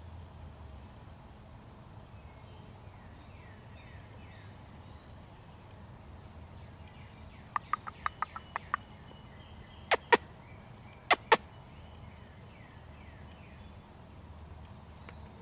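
Faint woodland birds calling, a few short falling chirps repeated, over a quiet background. About halfway through comes a quick run of about seven sharp clicks, then two pairs of sharper clicks.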